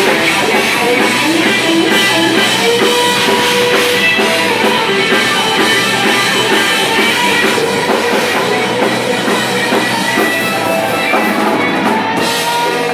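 Rock band playing live: distorted electric guitars over a drum kit, loud and steady throughout.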